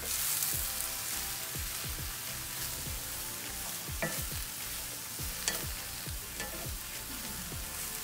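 Sliced mushrooms sizzling and frying in hot oil in a cast-iron skillet as they brown, stirred with a wooden spatula. Two sharp clicks, about four seconds in and again a second and a half later.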